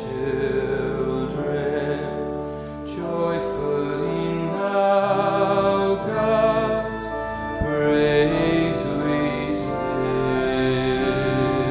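A young man singing a hymn solo into a microphone, with wavering held notes, over sustained organ accompaniment.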